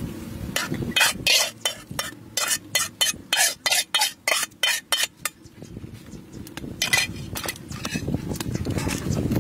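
Metal spatula scraping and knocking against a wok: a quick run of short, sharp scrapes about three a second through the first half, then a few more about seven seconds in.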